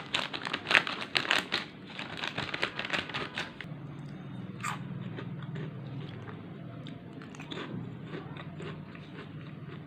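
Crisp crunching and crinkling of spicy tomato chips: a dense run of sharp crackles for the first three or so seconds, then quieter, sparser crunches of chewing.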